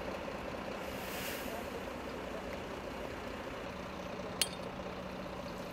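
Fire engine's engine running steadily at idle, with a single sharp click about four and a half seconds in.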